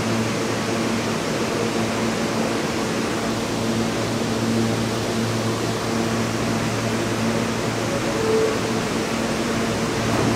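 A New York City subway train standing at the platform with its doors open, its air-conditioning and on-board equipment giving a steady hum and hiss with a low drone underneath.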